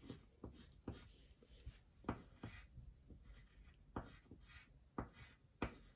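A coloured pencil scratching faintly on paper in short, irregular strokes as hair is drawn and coloured in.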